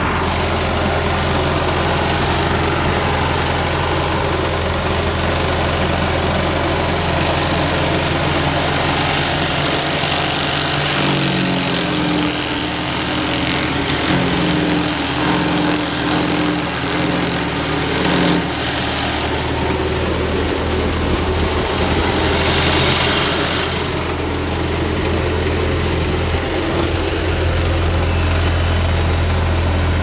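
Ferguson tractor engine running steadily, driving a PTO-powered Bearcat wood chipper. From about 11 to 18 seconds the note shifts and turns uneven as conifer clippings are fed into the chipper. About 23 seconds in there is a brief hiss.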